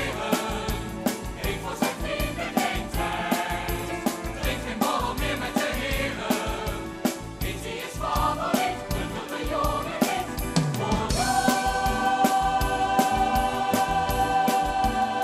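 Musical-theatre number: ensemble singing over band accompaniment with a steady drum beat. About eleven seconds in, the music settles onto a long held chord.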